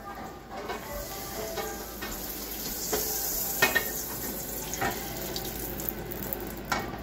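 Butter sizzling as it heats in a frying pan over a gas burner, the hiss growing about a second in and loudest midway, with a few sharp clicks and knocks from the pan.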